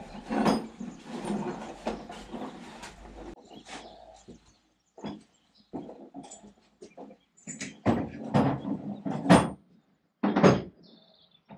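Metal clatter and scraping from hand-tool work on a lathe's three-jaw chuck held in a vise. The scraping runs for the first few seconds, then gives way to a few separate sharp metal knocks, the loudest near the end.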